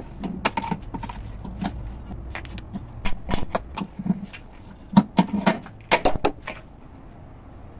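Irregular sharp clicks and clinks as the hard sand-and-glass potting of a cheap AC CDI is picked and chipped out in a steel bench vise, the loudest knocks about five and six seconds in. The clicking stops shortly before the end.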